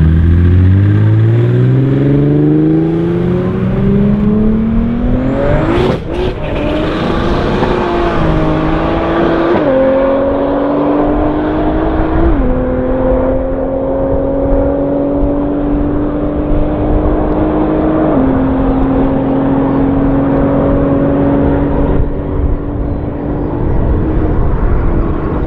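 A turbocharged BMW M3 E46 and a Mercedes-AMG GT R Pro launching together at full throttle: the engine note climbs steeply for about six seconds, with a sharp crack about six seconds in. The note then holds high and steps down at three upshifts as the cars pull away.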